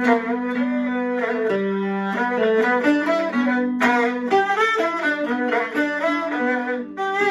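Peking opera music, with bowed fiddles carrying a flowing melody over held lower notes.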